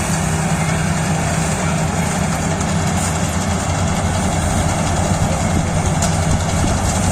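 Kubota DC-35 combine harvester running at a steady, unchanging speed: a loud, continuous engine drone.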